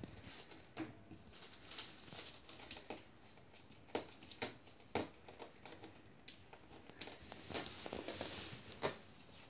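Cairn terrier puppy nosing and pawing at a plastic bag under a stair gate: faint, irregular scratching and crinkling, with a few sharper clicks and a denser stretch of rustling near the end.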